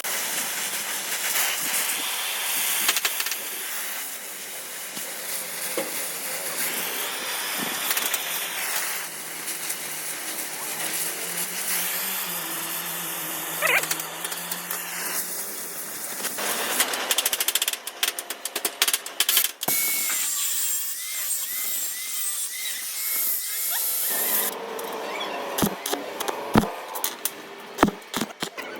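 Metalworking in a shop: power-tool and welding noise. About the first half is a steady hiss with fine crackle, and the second half is a series of sharp clicks and taps.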